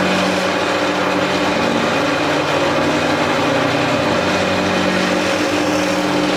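A power tool's electric motor running steadily under load, with a continuous whirring hum and no change in speed.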